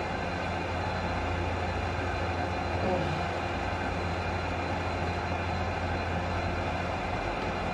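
Steady mechanical hum and drone, with a strong low hum and a faint thin high whistle above it, unchanging throughout; the sound of a ventilation or air-conditioning unit running in an enclosed room.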